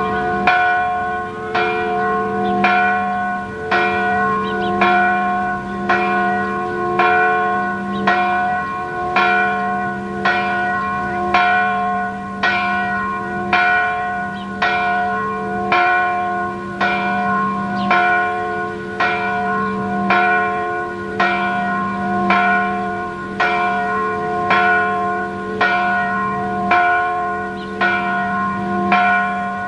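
Full peal of three church bells tuned C♯, F♯ and A♯ (cast in 1926, 1960 and 2006), swinging together for the midday ringing. Their strokes come at a steady pace of about two a second and overlap into one continuous ringing.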